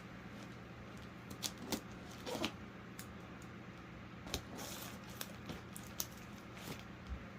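Hands working at a damp cardboard shipping box to open it: scattered short clicks, scrapes and rustles, over a steady low hum.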